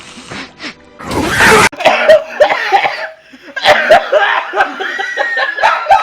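A harsh cough about a second in, then several people laughing, with music in the background.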